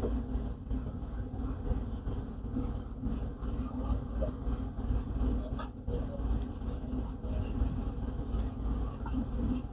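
Axial SCX24 micro rock-crawler's small electric motor and gears running as it creeps over rocks, with light ticking from the tires and a sharp knock about six seconds in.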